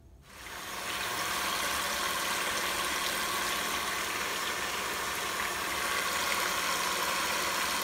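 Electric hand mixer running steadily, its beaters whisking eggs in a glass bowl; it starts just after the beginning and comes up to a constant whir within about a second.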